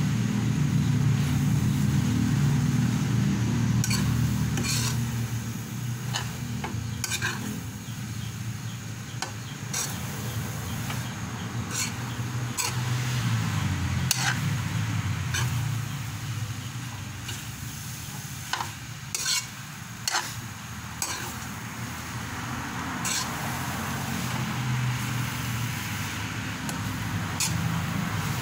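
Metal spatula scraping and clinking irregularly against a metal wok as rice noodles and vegetables are tossed and stir-fried, over a light sizzle and a steady low hum.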